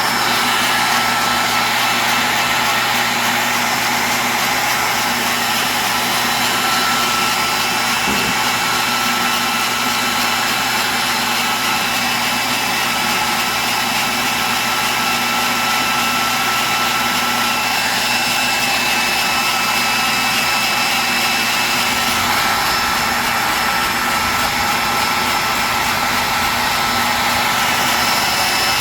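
Dumore tool post grinder running at high speed, its wheel grinding the jaws of a three-jaw lathe chuck: a steady high motor whine over a hissing grind. A lower hum joins in about three quarters of the way through.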